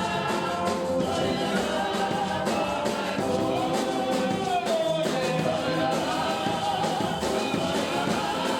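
Gospel music: a group of voices singing over a steady percussive beat.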